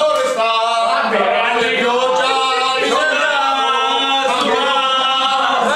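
Men singing unaccompanied in long held notes, a sung drinking toast.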